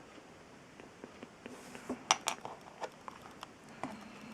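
Small clicks and taps of plastic model-kit parts and tools being handled, with a sharper pair of clicks about two seconds in.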